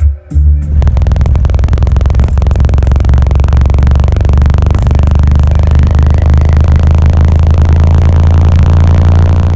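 Two 12-inch car subwoofers on a 5000-watt amplifier playing very loud bass. After a last short hit, they hold one long, steady, deep bass note.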